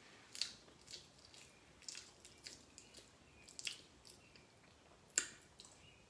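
Close-up mouth sounds of a person chewing greasy cheesy bread: faint, irregular wet smacks and clicks, one sharper smack about five seconds in.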